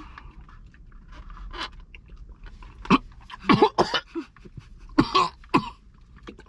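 A person coughing: several short, sharp coughs in two clusters, starting about three seconds in and ending near five and a half seconds.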